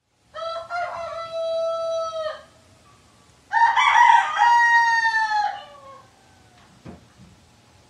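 Rooster crowing twice, each crow about two seconds long and falling in pitch at the end; the second crow is louder.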